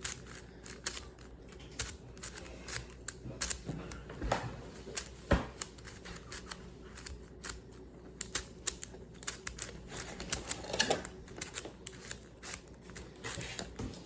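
Magnetic 7x7 speed cube being turned quickly through an algorithm: a rapid, irregular stream of plastic clicks and clacks as its layers turn and snap into place.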